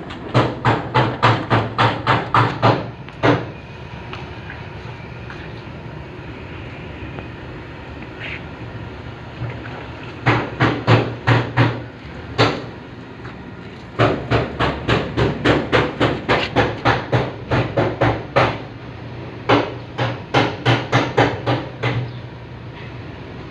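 Hammer blows in three runs, about four strikes a second, over a steady low hum.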